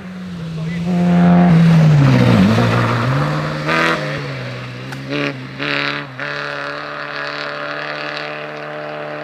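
Historic rally car's engine at high revs on a snowy special stage, loudest as it comes near. Its pitch drops sharply about two seconds in as the driver slows, then climbs again in a few short surges as the car pulls away, fading to a steady note.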